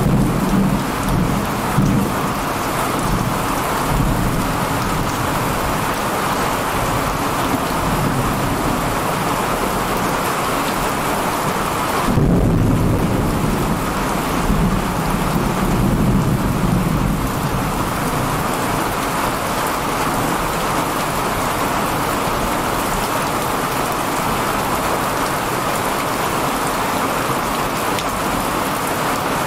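Heavy thunderstorm rain pouring steadily. Thunder rumbles at the start, and a new roll of thunder breaks in suddenly about twelve seconds in and fades over several seconds.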